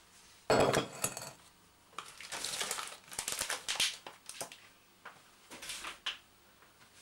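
Kitchen handling noise: clear plastic food trays crinkling and clattering as they are moved, with clinks and knocks as a glass mixing bowl goes onto the worktop. The loudest is a sudden rustling clatter about half a second in; a longer run of crinkling and clicking follows from about two to four seconds, then a few short knocks.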